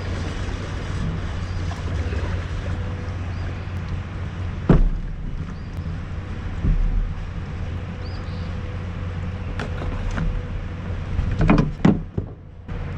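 Steady rushing of wind and river water on an outdoor microphone, with a sharp knock about five seconds in and a quick cluster of knocks near the end.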